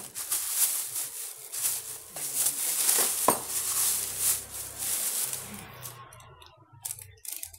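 Clear plastic bag crinkling and rustling as it is handled and pulled off a power tool, dying away after about six seconds into a few light clicks and knocks of the tool being handled.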